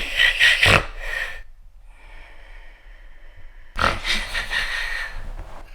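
A man snoring: a long, loud snore at the start, a quieter breath, then a second loud snore about four seconds in.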